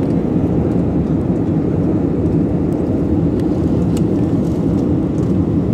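Steady rumble of an airliner heard from inside the passenger cabin: engine and airflow noise during the approach and landing, with a few faint ticks.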